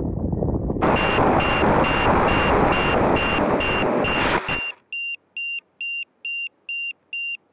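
Onboard audio of a box-wing FPV plane coming down in grass: a loud rush of wind and grass noise that cuts off abruptly a little after four seconds in as the plane comes to rest. Through it and after it, a high-pitched electronic beeper aboard the plane beeps evenly, about twice a second.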